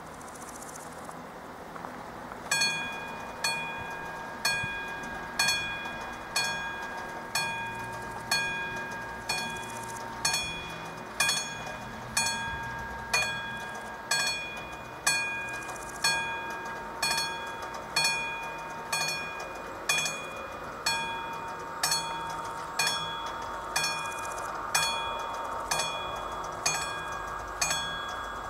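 Level-crossing warning bell of VÚD crossing signals starting up about two and a half seconds in and striking a ringing, multi-tone bell about once a second, warning that a train is approaching. A hiss in the background grows louder near the end.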